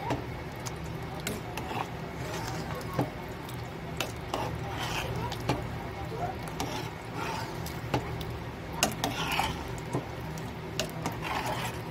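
A metal ladle stirring a thick dal gosht stew in a metal cooking pot, with irregular scraping and clinks against the pot's sides and bottom and the wet churning of lentils and meat, over a steady low hum.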